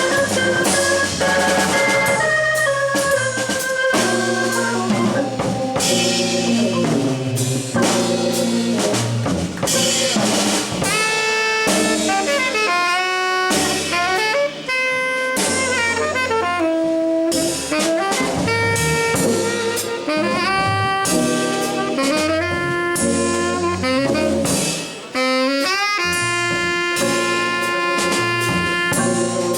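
Live jazz organ trio playing: tenor saxophone improvising melodic lines with slides and fast runs over organ and a drum kit.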